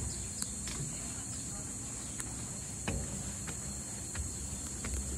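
Insects keeping up a steady high-pitched drone, with a few faint clicks scattered through.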